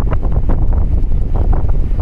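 Strong wind buffeting the microphone: a loud, uneven low rumble with irregular gusty flutters.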